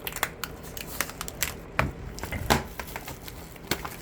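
A 4K Blu-ray case and its plastic wrapping being handled during unboxing: irregular clicks, taps and crinkles, a few sharper ones among them.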